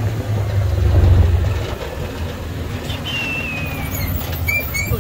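Side-by-side utility vehicle driving on a dirt track: a steady low engine and drivetrain rumble. A thin, falling whistle comes about three seconds in, and two short chirps follow near the end.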